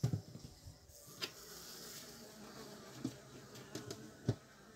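Honeybees buzzing faintly from an open hive, broken by a few sharp wooden knocks, the loudest a little after four seconds in.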